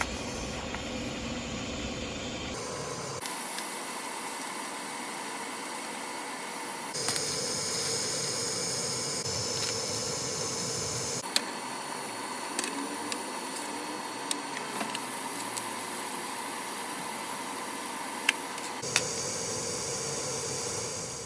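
Electric welding arc hissing and crackling steadily on steel, in several passes joined one after another.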